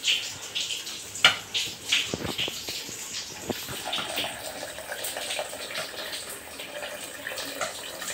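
Water running from the tap of a plastic water container into a metal pot of rice, filling it with clean rinse water, with a sharp knock about a second in.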